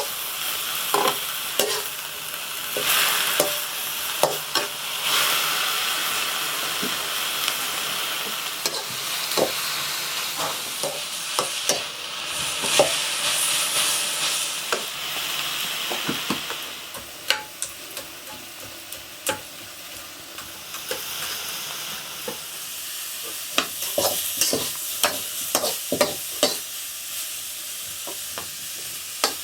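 Food frying in oil in a pan, sizzling steadily, while a metal spoon stirs and scrapes against the pan in frequent short knocks. The sizzling eases a little over halfway through, and a quick run of scraping knocks comes near the end.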